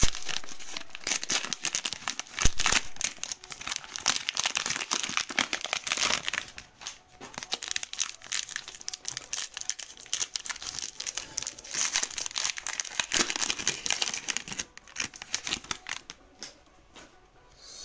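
Foil wrapper of a Panini Optic basketball card pack crinkling as it is torn open and the stack of cards is slid out. The crackling eases off near the end.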